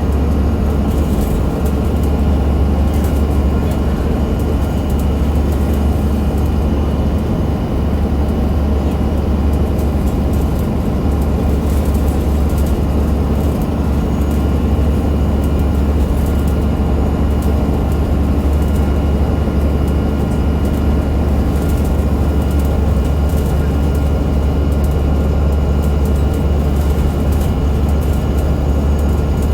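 Alexander Dennis Enviro500 MMC double-decker bus running at a steady pace: a low, even diesel drone from its Cummins ISL8.9 engine with a set of steady high whining tones over it, the weird axle whine.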